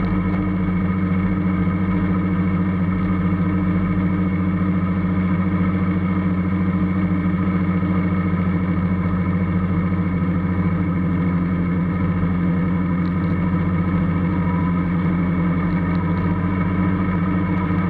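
Formula Student race car's engine running at a steady low speed, one unchanging drone held for the whole stretch.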